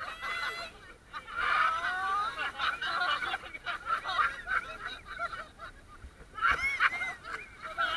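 A group of banana boat riders shrieking and laughing, many high overlapping cries as the boat swings and riders tumble into the sea, with the loudest shriek a little over six seconds in.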